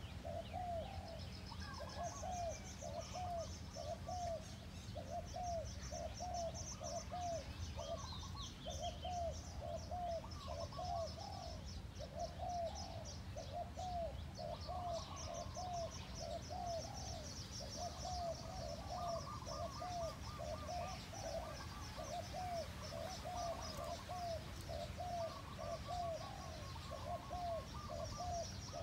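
Spotted dove (Thai nok khao yai) giving a fast, repeated run of short coos, about one to two a second: the excited call that a decoy dove uses to lure a wild dove down. Small birds chirp and trill high above it.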